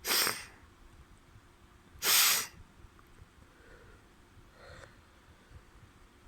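Two short, forceful blasts of air through a nose congested with a head cold, about two seconds apart, the second one louder; then faint breathing.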